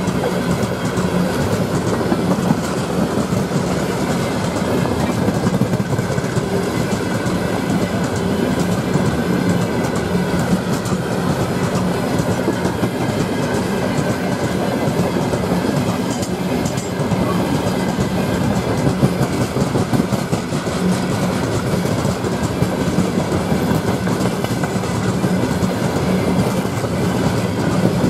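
Long freight train of open gondola wagons rolling past close by: steady rumble of wheels on rail with continuous clickety-clack over the rail joints.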